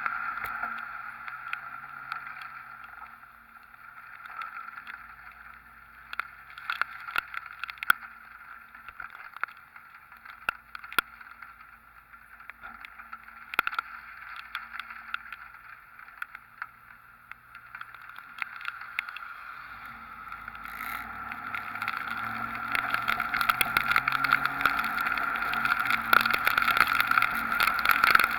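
Wet road noise and wind-driven rain around a Dodge Ram pickup driving through hurricane rain, picked up by a camera mounted on the outside of the truck, with a low engine hum underneath. Scattered sharp ticks run through it, and the noise grows louder over the last several seconds.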